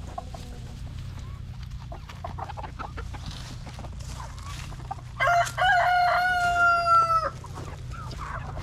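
A rooster crows once, about five seconds in: a couple of short broken notes and then one long held note that sags slightly at the end, about two seconds in all. Faint scattered rustles and ticks come before it.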